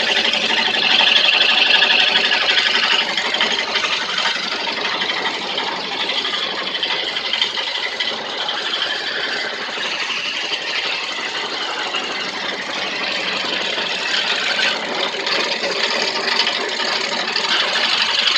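Carving machine running steadily, a continuous high-pitched mechanical whir and hiss that is a little louder in the first few seconds.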